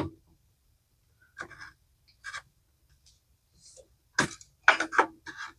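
Oil dipstick on a lawn mower engine being set into the oil fill tube and drawn back out to read the level: a sharp click at the start, a couple of short scrapes, then a quicker cluster of scrapes and clicks about four seconds in.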